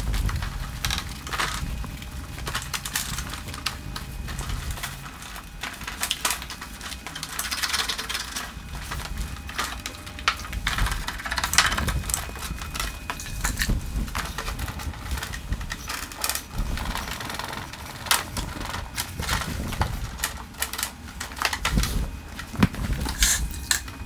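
A wet melamine sponge and a dry towel rubbing and scrubbing the plastic cover of a stand-type air conditioner: rapid, irregular scratchy strokes mixed with small clicks and knocks as the panel is handled.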